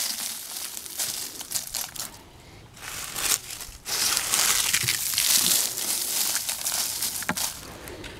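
Dry leaves crackling and rustling as handfuls are dropped and pressed into a plastic bucket, with two short pauses about two and three and a half seconds in.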